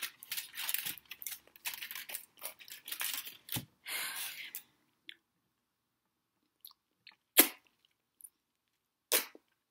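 Handling noise from a chocolate bar and its wrapper: dense rustling and crinkling for the first four or five seconds, then near quiet broken by a few small clicks and one sharp smack a little past halfway.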